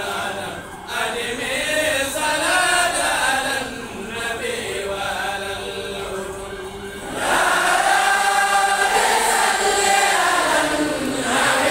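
Men's voices chanting an Islamic religious chant together, led into a microphone. The chant grows louder and fuller about seven seconds in.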